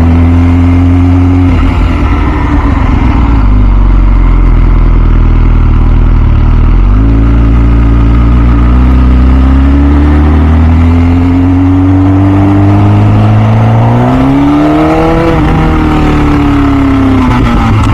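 The 2006 MV Agusta F4 CC's 1078 cc inline-four running under way, heard from the rider's seat. The engine note sinks for the first few seconds, picks up sharply about seven seconds in, and climbs through the revs. It peaks around fifteen seconds in, then falls away as the bike slows.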